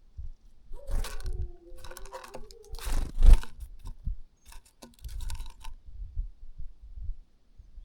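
Birds feeding close to the microphone: irregular scratching, pecking and crunching with low thumps, loudest about three seconds in. A short wavering tone runs underneath from about one to two and a half seconds in.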